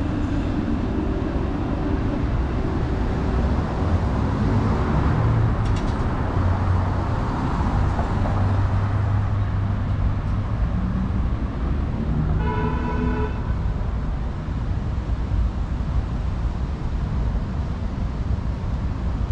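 Steady rumble of city street traffic, with a vehicle horn sounding once for about a second roughly two-thirds of the way through.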